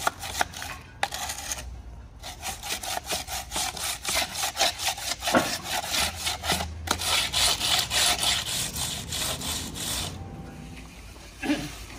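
A hand float is rubbed back and forth over the side of a freshly stripped concrete countertop. It makes quick, rhythmic scraping strokes as it smooths the still-green concrete face, and the strokes stop about ten seconds in.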